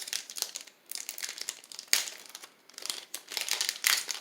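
Foil Pokémon booster pack wrapper crinkling in irregular bursts as it is handled and opened by hand.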